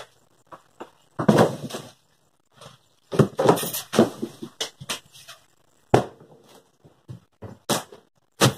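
A wooden shed floor being pried up and broken apart with a pry bar and hammer: a run of sharp knocks and short bursts of cracking wood.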